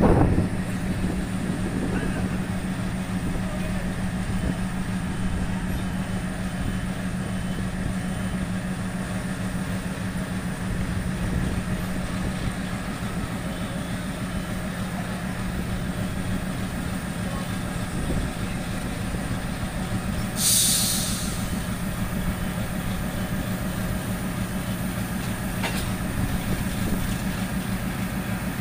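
Diesel locomotive engine running with a steady low hum as the engine moves slowly along the station track. A short burst of air hiss, typical of an air brake being worked, comes about two-thirds of the way through.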